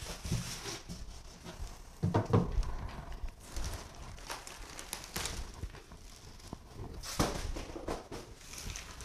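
Cardboard packing boxes being pulled off a plastic-wrapped propeller: cardboard scraping and plastic rustling, with knocks and footsteps on a wooden floor. Louder bumps come about two seconds in and again just after seven seconds.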